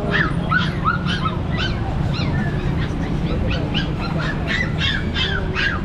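Caged puppies yelping and whining: a steady stream of short, high calls, several a second and overlapping, over a low background rumble.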